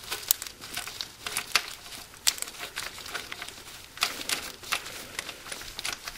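A hand in a disposable glove working among hoses and parts in a car's engine bay: scattered crinkling and small sharp clicks, irregular and with no steady rhythm.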